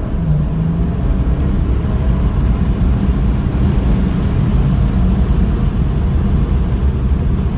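2011 BMW 335d's three-litre straight-six diesel, running a triple-turbo setup at 60 psi boost, pulling hard under acceleration. A deep engine drone carries on throughout, with a high turbo whistle that rises over the first few seconds and then fades.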